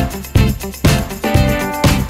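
Upbeat background music with a steady beat, a hit about every half second under sustained pitched notes.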